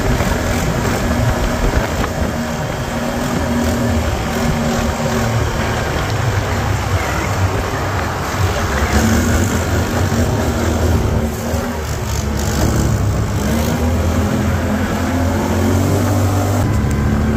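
ATV engine running steadily under way, its pitch rising and falling a little with the throttle.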